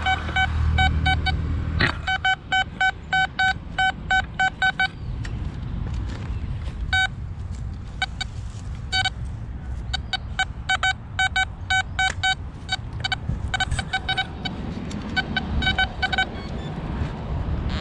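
XP Deus metal detector sounding a buzzy target tone in short, evenly repeated beeps, about three to four a second, in runs broken by pauses, as the coil passes back and forth over a buried target. A low rumble runs underneath.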